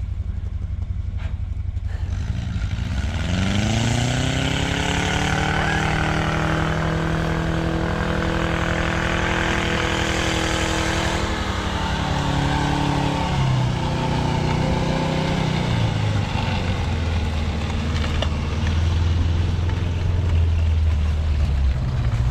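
Small tracked snowcat's engine revving up about two seconds in, then holding a steady pitch as it drives through snow. About halfway through the pitch drops, and the engine runs lower and louder as the machine comes close.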